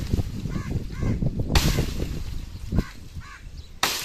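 Axe chopping dry tree branches: two sharp blows about two seconds apart, with short bird calls between them.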